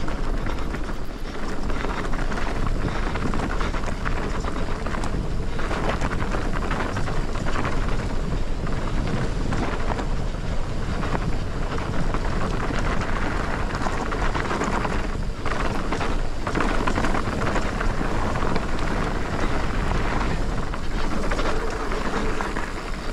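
Commencal Meta TR mountain bike descending a rough dirt trail: steady tyre noise on dirt and stones, broken by many small irregular knocks and rattles from the bumps, with wind noise on the microphone.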